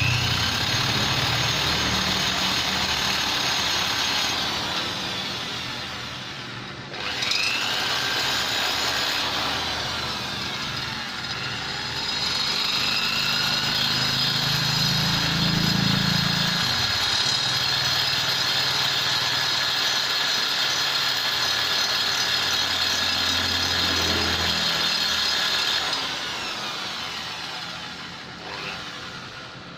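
High-speed die grinder running with a tuner burr against the metal of a Vespa engine's port openings, shaping and smoothing them. It runs with a steady high whine, stops briefly about seven seconds in, starts again, and slows down near the end.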